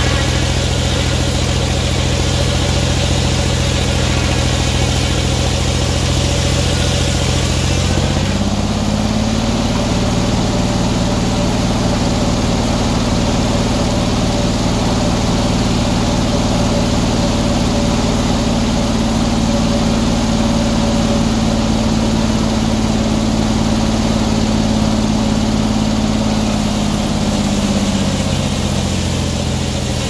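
Engine-driven circular sawmill running. About eight seconds in its note steps up and holds steady with a fine rapid pulse while the blade cuts through a log on the carriage, then drops back near the end as the cut finishes.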